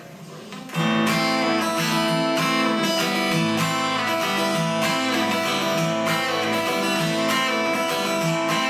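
Acoustic guitar beginning a song's intro about a second in, played in a steady rhythm with ringing chords.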